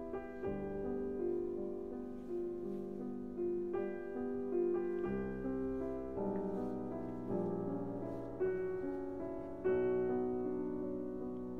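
Background music: solo piano playing a slow melody, one note struck and left to ring about every second.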